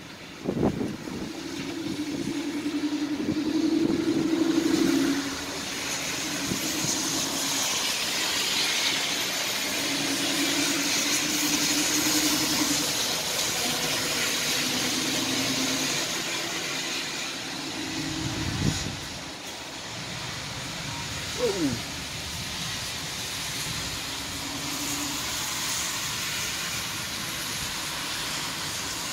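Thunderstorm: rain hissing steadily, with thunder rumbling on and off. There is a sudden louder thump about eighteen seconds in.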